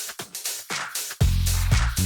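Electronic dance music with a steady beat; a heavy bass line comes in just over a second in.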